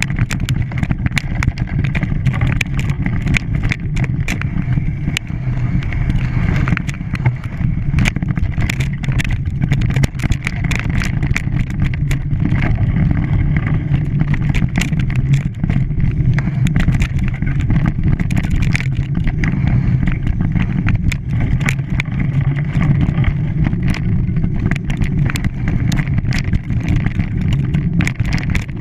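A motor running steadily with a low drone, with frequent sharp clicks and rattles over it.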